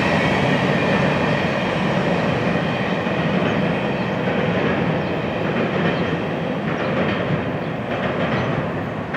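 Freight cars of a grain train rolling past, a steady rumble of steel wheels on rail with light clicking, slowly getting quieter toward the end.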